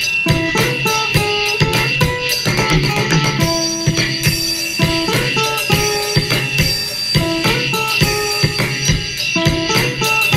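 Background music with a steady beat, drums and plucked guitar.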